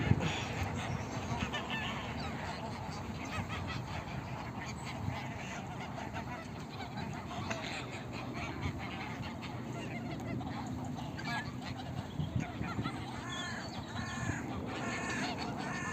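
Waterfowl calling, with a quick run of repeated calls near the end, over steady background noise.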